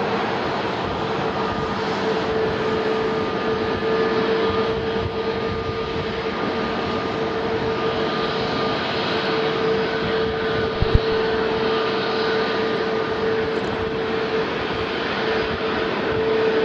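Boeing 737-400 freighter's CFM56 turbofan engines running at taxi power: a steady whine over a hiss of jet noise. A single short knock comes about eleven seconds in.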